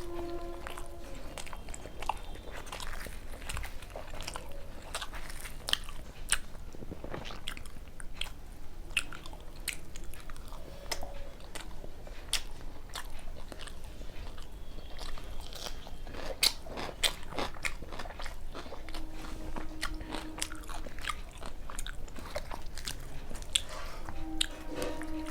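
Close-miked eating: repeated bites, crunching and wet chewing of food, with many small clicks and crackles from the mouth. A short low hum comes about two-thirds of the way through and again near the end.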